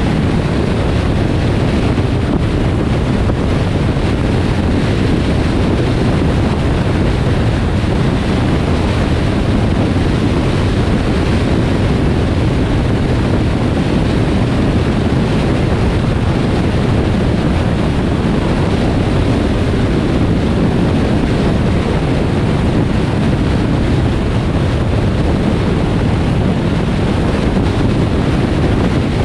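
Steady rush of wind and road noise from a car driving along a highway, a constant low-heavy roar with no changes.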